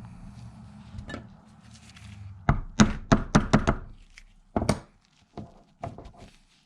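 A quick run of sharp knocks about halfway in, then a few single knocks, as a gummed-up hydraulic lifter from a 5.3 V8 is worked to free its stuck plunger. A low steady hum stops just before the knocks.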